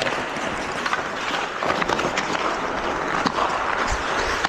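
Hockey game in play: a steady scraping haze, with sharp clacks of sticks and puck scattered through it.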